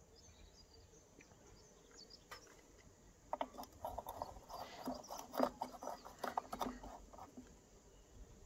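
Gloved hands knocking and clicking against the plastic gear tray and housing of a Philips Iridium streetlight: a run of irregular knocks and clicks starting about three seconds in and lasting a few seconds.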